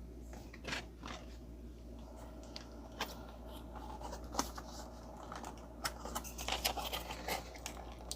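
Toy packaging being handled and pulled at by hand: scattered clicks, scrapes and rustles, getting busier near the end.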